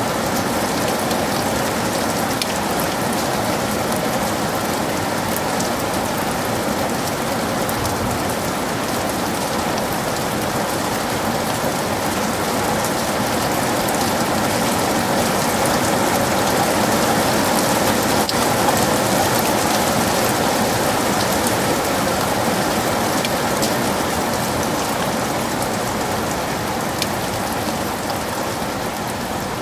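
Heavy rain falling steadily, a dense hiss of drops with fine individual patters on top, swelling a little about halfway through.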